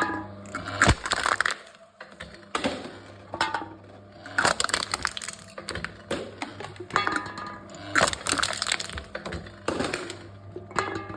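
Aluminium cans being crushed by a machine: the thin metal crackles and crinkles in about five separate bursts, a second or two apart.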